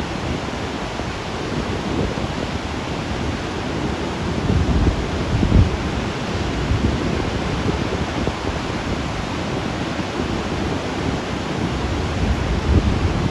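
Steady rush of fast water released through Table Rock Dam's open spillway gates, with low gusts of wind buffeting the microphone now and then.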